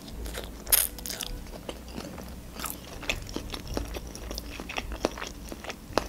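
Close-up eating sounds: a bite into a hot dog in a soft bun with lettuce, loudest about three-quarters of a second in, then chewing the mouthful, with many small wet clicks and crunches.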